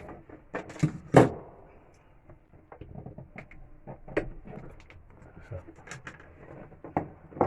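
Scattered sharp clicks and clunks of hands and tools working at a motorhome's battery connections, the loudest a pair of knocks about a second in.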